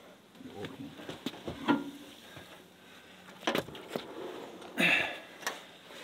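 Scattered knocks and bumps of a heavy wood stove being hand-lifted and pushed up into a raised doorway, with a short scraping burst about five seconds in.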